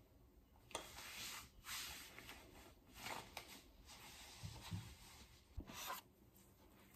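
Faint rustling and a few soft knocks of a person moving and handling things close to the microphone, with a sharp click about a second in and a low knock near the end.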